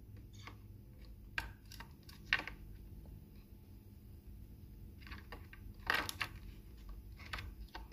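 AAA batteries being fitted into a Brother P-touch label maker's plastic battery compartment: several faint, scattered clicks and taps as they are pressed in against the spring contacts.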